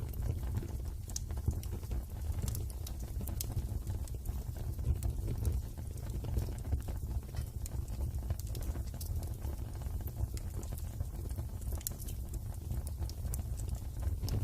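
Wood fire crackling in a fireplace: scattered, irregular sharp pops and snaps over a steady low rumble of the burning fire.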